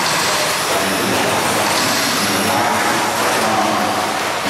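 Electric 2WD short course RC trucks racing on a dirt track: a steady whine of their electric motors mixed with tyre noise on the dirt.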